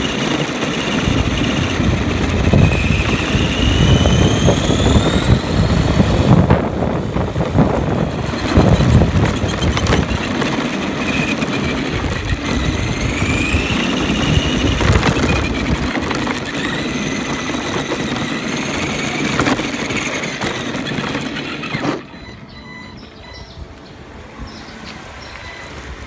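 The 20T electric motor of an Arrma Granite Voltage 1:10 RC monster truck whines over a rough rumble and rattle of its tyres on concrete, heard from a camera mounted on the truck. The whine rises in pitch twice as the truck accelerates. The noise drops off sharply about four seconds before the end.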